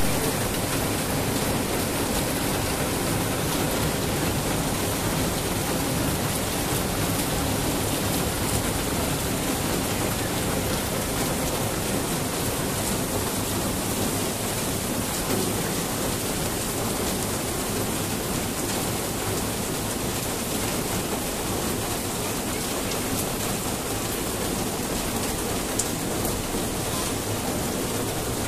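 Heavy rain falling steadily on a courtyard and trees: an even, unbroken hiss.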